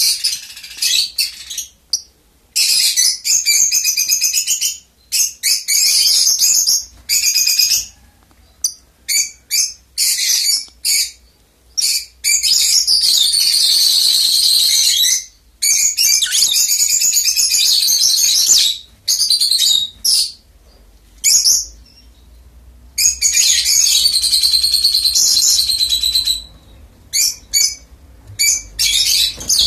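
Rosy-faced lovebirds chattering: rapid, high-pitched calls in bursts of one to three seconds with short pauses between.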